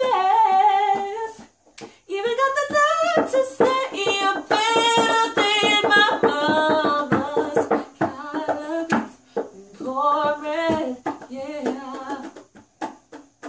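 A young woman singing a melody with long held and sliding notes, pausing briefly about two seconds in and again near the end. Short sharp clicks run through it.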